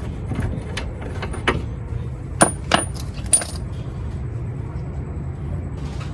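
Hand tools and the front spindle nut clinking as the nut is worked off the hub: several sharp, irregular metallic clinks with a short ring, the loudest three close together about two and a half to three and a half seconds in.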